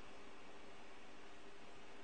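Steady faint hiss with a low hum underneath: room tone, with no distinct sound events.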